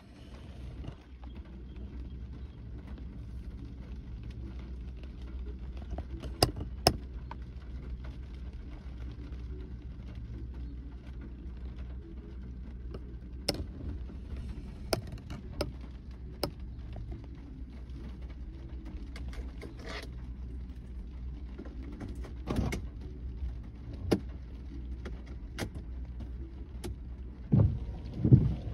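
Raindrops tapping now and then on a parked car's roof and windshield, heard from inside the cabin over a steady low hum. Near the end come a few louder low thumps.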